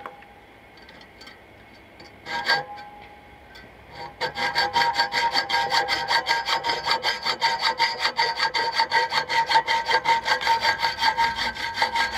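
Hacksaw cutting through the metal head of a kitchen axe-hammer held in a vise. A short burst of strokes comes about two seconds in, then fast, steady back-and-forth strokes start about four seconds in, each with a ringing metallic rasp.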